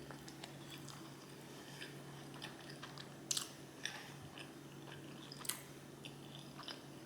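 Close-miked chewing of food: faint, scattered wet mouth clicks and smacks, with a few sharper ones around the middle, over a steady low hum.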